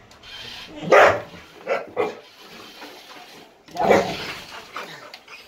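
Pit bull barking at a remote-control toy backhoe that is coming toward it. Several separate barks: the loudest about a second in, two shorter ones near two seconds, another loud one near four seconds and a few smaller ones after it.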